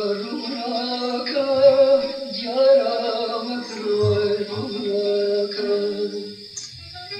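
A man singing a slow melody in long, bending held notes.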